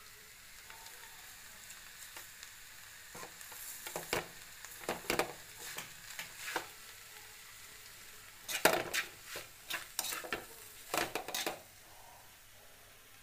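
A metal spoon scraping and knocking against a metal kadai in irregular strokes as an ivy gourd stir-fry is stirred, over a faint steady sizzle. The strokes start about three seconds in, the loudest comes late, and they stop shortly before the end.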